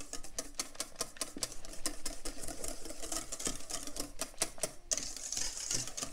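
Wire whisk beating chocolate cake batter in a stainless steel bowl: rapid, irregular clicking and scraping of the wires against the metal.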